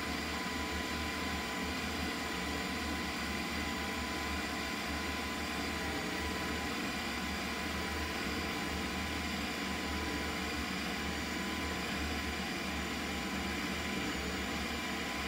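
Ninja CREAMi ice cream maker running its Ice Cream program, its blade spinning down through a rock-hard frozen pint. It makes a steady, loud whir like a blender, with a constant high whine running through it.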